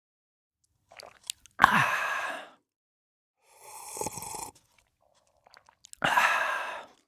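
A man sipping and slurping coffee: two loud slurps about a second long, one near the start and one near the end, with small lip clicks and a quieter mouth sound between them.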